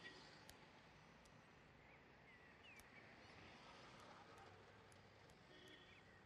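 Near silence: faint room tone with a few faint short chirps and light ticks.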